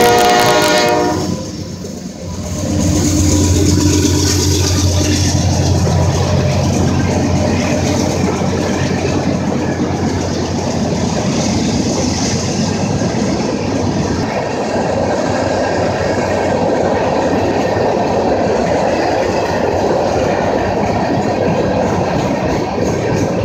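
A Norfolk Southern diesel freight train's horn cuts off about a second in. The trailing locomotive, an ex-Conrail GE Dash 8-40CW, then passes with a low engine drone for a few seconds, followed by the steady rolling noise of a long string of hopper cars' wheels on the rails.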